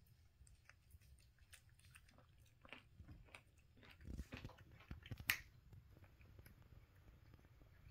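Kitten chewing and biting pieces of baked chicken: faint, irregular wet chewing clicks. They grow louder about three to five seconds in, with one sharp click a little after five seconds.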